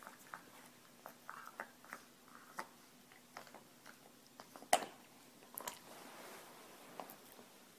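Dog gnawing a chew bone: irregular clicks and crunches of teeth on the bone, with one sharper click just under five seconds in.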